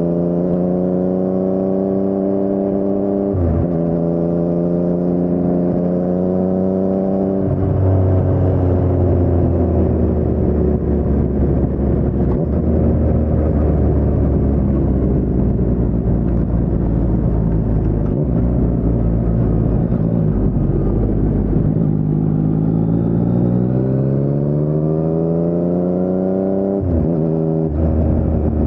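2019 Yamaha MT-09's three-cylinder engine through an Akrapovic carbon full-system exhaust with no dB killer, under way. It revs up, with a brief cut in the note for a quick upshift about three seconds in, and pulls on. About seven seconds in it rolls off into a long, low-revving deceleration, then accelerates again about seven seconds before the end, with another quick upshift near the end.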